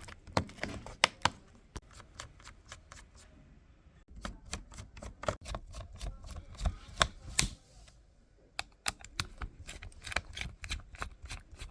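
Many small sharp clicks and taps in irregular runs, from hands and small tools working on the opened laptop's internals.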